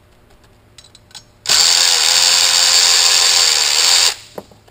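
Small cordless lithium drill running steadily for about two and a half seconds, then stopping abruptly, as it spins out a bolt holding the turbine housing of a turbocharger. A few light clicks of tools being handled come before it.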